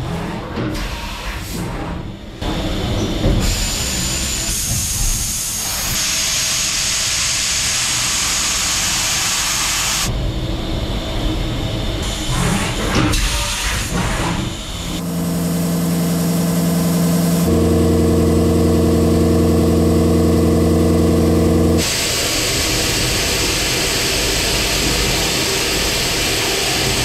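Makino a500Z 5-axis machining center cutting ductile iron: machining noise with a steady hiss that changes abruptly several times. A little past the middle, a steady humming tone of several pitches at once holds for several seconds.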